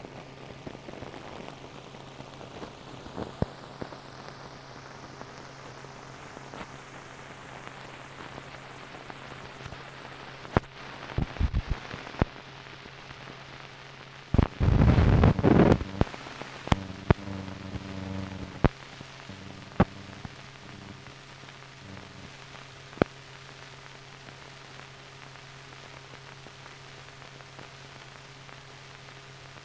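Hiss and crackle from an old optical film soundtrack running over blank leader, with scattered sharp clicks and pops and a steady low hum underneath. About halfway through there is a loud burst of crackling noise lasting a second or two.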